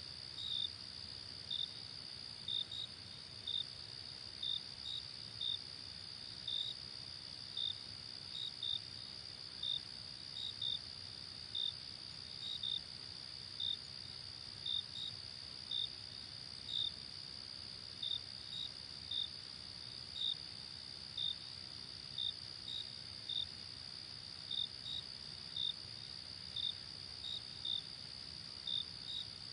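Night insect chorus: a steady, unbroken high trill, with short separate chirps repeating irregularly about one and a half times a second over it.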